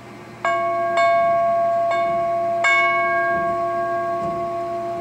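A 1.5-inch, 1/8-inch-wall 6061 aluminum wind chime tube, hung by a string, struck four times within about three seconds and left ringing. It gives a long, steady sustain made of several clear overtones, with a perceived note of F over a low C fundamental, as it is checked for tuning.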